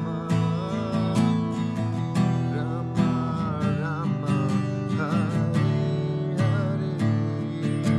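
Background music: an acoustic guitar strumming chords, with a wavering melody line above.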